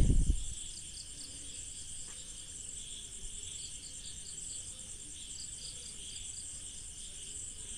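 Steady, high insect chirring with a faint pulsing beat, running under everything at a low level.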